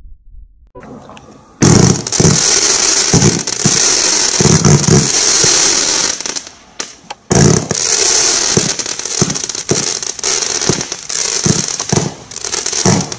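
Cyber Force firework barrage cake firing in rapid succession: a dense run of launch thumps over a steady high hiss. It starts about a second and a half in, breaks off for under a second about six and a half seconds in, then resumes.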